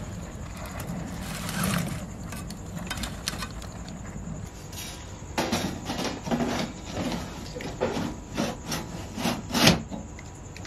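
A series of rough scraping or rubbing strokes, about two a second, starting about halfway through and ending with the loudest stroke, over a steady high-pitched hum.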